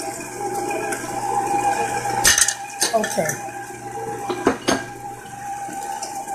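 Electric stand mixer running steadily, its flat beater turning cream cheese batter in a stainless steel bowl. Several sharp metal clinks against the bowl land about two, three and four and a half seconds in.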